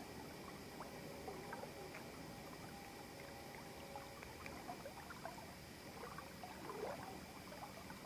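Faint trickling and dripping of river water with small scattered drips and splashes, over a steady faint high-pitched background hum.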